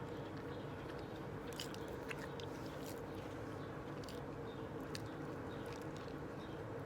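Close-up chewing and biting of a McDonald's burger, with scattered small wet clicks and smacks of the mouth, over a steady background hum.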